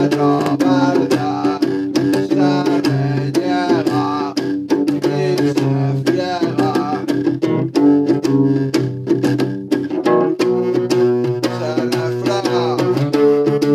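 Music: a guitar strummed and plucked over held bass notes, with a wavering melodic line above.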